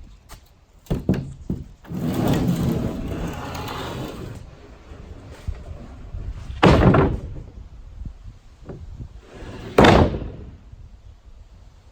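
A few light knocks, a stretch of rushing noise, then two loud thuds about three seconds apart, like heavy boards or sheets being dropped or banged into place during building work.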